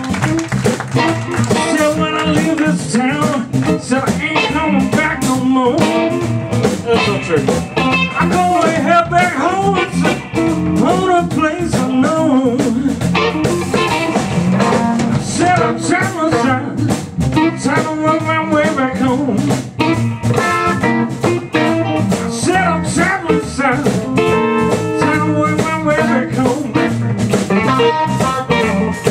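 Live blues band playing: Strat-style electric guitar through a Longhorn valve amp, over a drum kit.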